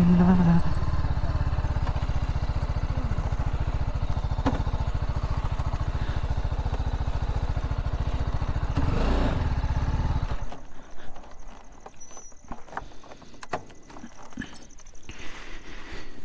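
Motorcycle engine dropping from light revs to a steady idle as the bike rolls to a stop, then switched off about ten seconds in. After that come only faint clicks and handling noises.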